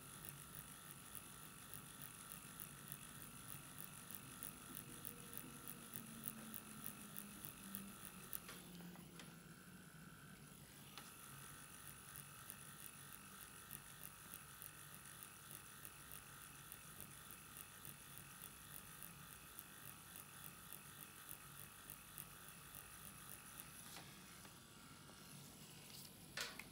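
Permanent-makeup pen machine with a single-needle module running, a faint steady electric buzz as the needle strokes in and out dotting pigment. The buzz thins briefly about nine seconds in and changes near the end as the pen is lifted away.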